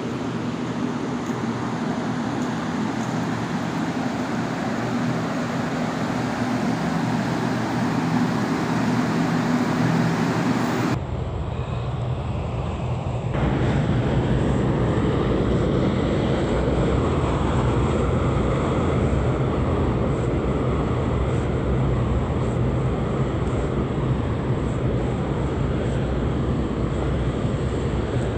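Steady low engine-like rumble with a constant hum, like traffic or motor noise. Its character changes abruptly about eleven seconds in.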